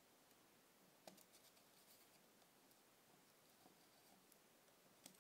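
Near silence, with a few faint clicks of fingertips handling the metal front ring of a camera lens, the clearest about a second in and near the end.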